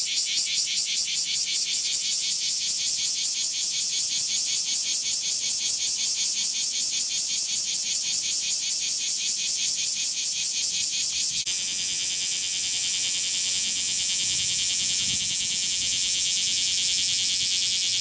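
Male bear cicada (kumazemi) calling to attract females: a loud, high, rapidly pulsing buzz of about five pulses a second. About eleven seconds in it gives way to a steadier cicada buzz with little pulsing.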